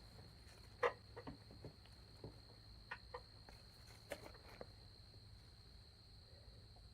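Scattered light clicks and knocks of the plastic headlight housing and turn-signal bulb socket being handled and pushed into place, the sharpest about a second in, over a faint steady high-pitched tone.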